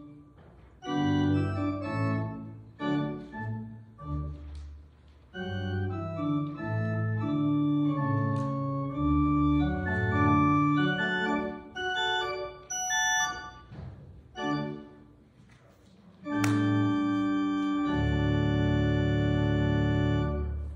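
Church organ playing the closing phrases of a slow solo piece in held chords, ending on a long sustained final chord with deep bass notes joining about two seconds before it is released.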